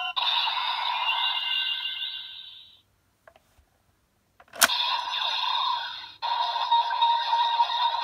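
Electronic music and synthesized sound effects from a Bandai DX Legendriver toy belt, played through its small built-in speaker. The first tune fades out about three seconds in. After a moment of silence, a sharp click sets off a new run of synthesized music and effects.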